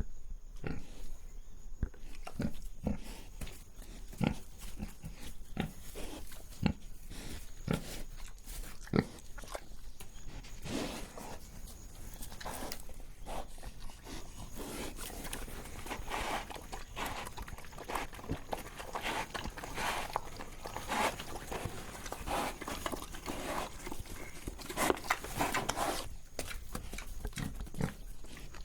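A pig breathing and snuffling close up: irregular short, noisy breaths and sniffs mixed with small clicks. The breaths come denser and louder through the middle and later part.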